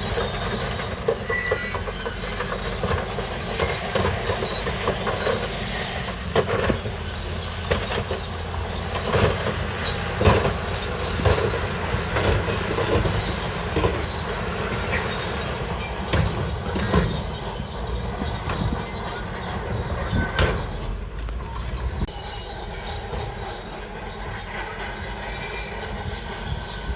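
Shantui DH17 crawler bulldozer working: its diesel engine runs steadily while the steel tracks clank and squeal, with repeated knocks and clanks that are thickest in the middle of the stretch.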